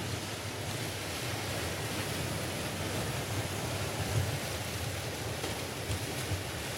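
Sea surf washing and breaking against a rocky shore: a steady rush of waves with a low rumble, swelling slightly a couple of times.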